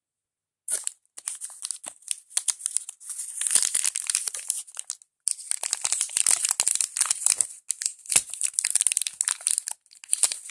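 Crinkly plastic wrapper of a small Shopkins piece being handled and torn open, with rapid crackling that starts about a second in and runs on with a couple of short pauses.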